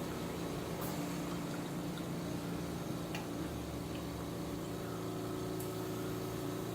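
Steady low mechanical hum with a few faint, light clicks.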